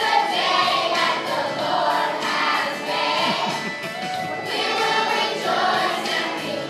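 A group of young preschool children singing a song together in chorus, in phrases of about a second each.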